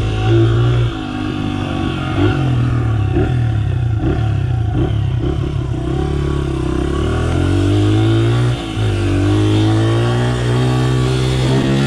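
Honda CRF pit bike's single-cylinder four-stroke engine riding a dirt track, its pitch climbing and falling with the throttle, with a short lift off the throttle nearly three-quarters of the way through.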